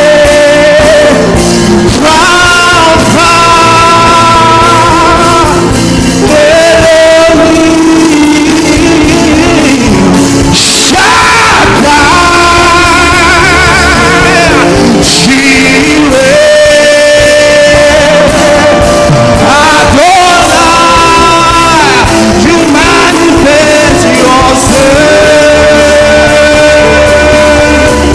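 Worship music: a choir singing long held notes over a full live band.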